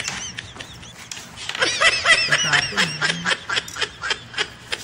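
Men laughing, with a burst of quick repeated ha-ha pulses from about one and a half seconds in that trails off into chuckles.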